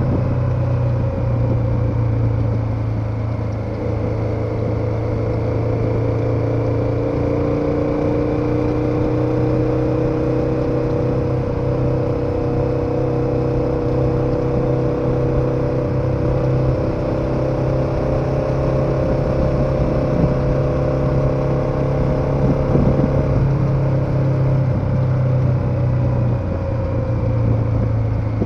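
KTM 1290 Super Adventure's V-twin engine running steadily under way, its note drifting slightly up and down with small changes in speed, over road and wind noise.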